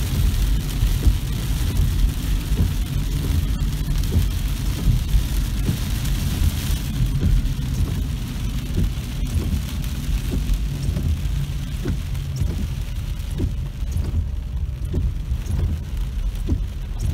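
Heavy rain hitting a car's roof and windshield, heard inside the cabin over a steady low rumble of wind and road noise. The rain's hiss eases after about seven seconds, leaving scattered drops ticking on the car.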